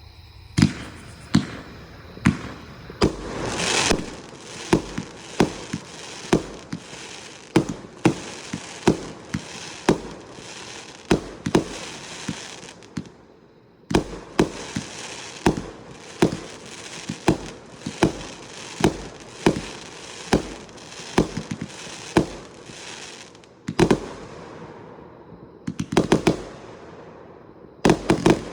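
A 225-shot firework cake firing a steady barrage: sharp bangs about one and a half a second, each followed by a hiss. It pauses briefly about 13 seconds in, and fires a quick volley of shots close together near the end.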